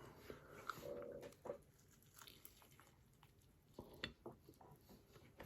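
Near silence with faint eating sounds: quiet chewing and a few light clicks, likely cutlery on a plate, and a brief low hum about a second in.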